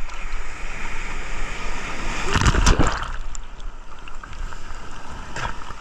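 Sea water sloshing and splashing around a camera held at the surface, with a wave washing over it a little past halfway, the loudest moment.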